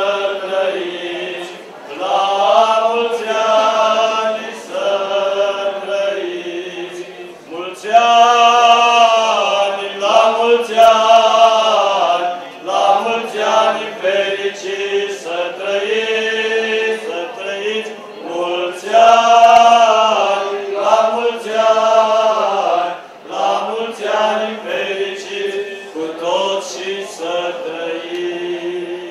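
A group of male voices singing a Romanian Orthodox liturgical chant in slow phrases of held notes, with short breaks between phrases.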